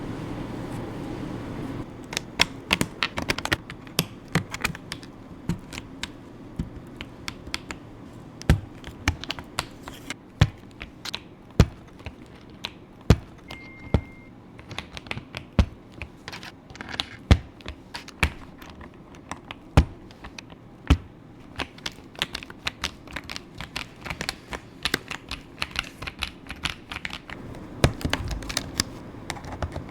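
Irregular plastic clicks and clacks of a mechanical keyboard being worked on, a few sharp ticks a second at uneven loudness.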